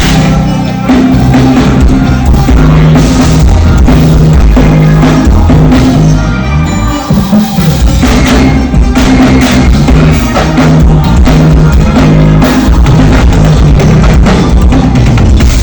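Live rock band playing loudly at a soundcheck, with drum kit and bass. About halfway through the music thins briefly and the bass slides in pitch before the full band comes back in.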